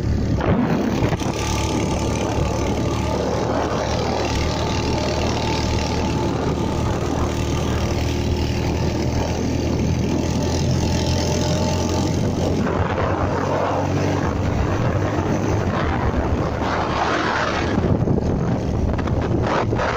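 Motorcycle engine running steadily while riding, with wind rushing over the microphone; in the second half the wind comes in louder gusts over the engine.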